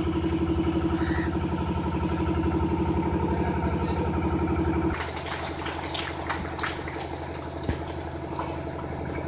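An engine running steadily at idle, a pulsing hum that drops in level about five seconds in, with a few faint clicks after.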